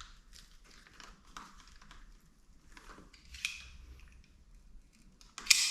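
A blade cutting through a rubber handlebar grip to strip it off: a run of short, irregular scratchy cutting strokes, with a louder, sharp rasp near the end.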